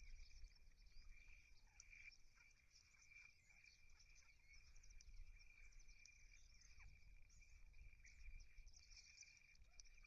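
Faint, dense chirping of many small birds over a steady high-pitched ringing tone, with a low rumble underneath.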